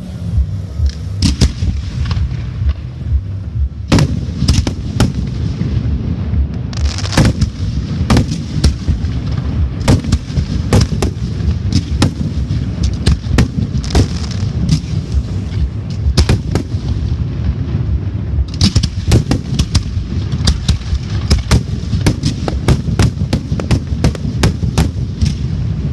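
Fireworks going off: many sharp bangs in irregular volleys over a constant low rumble. There are rapid runs of bangs about four seconds in, around ten seconds, and a long dense stretch through the last third.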